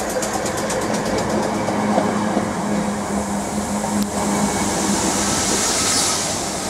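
South West Trains Class 455 electric multiple unit running close past on the rails, with a steady hum and wheel rumble. There is a sharp click about four seconds in, then a hiss rises.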